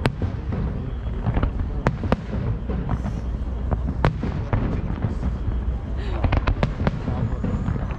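Aerial fireworks bursting: a steady stream of sharp bangs and cracks at irregular intervals over a continuous low rumble, with a quick run of bangs about six seconds in.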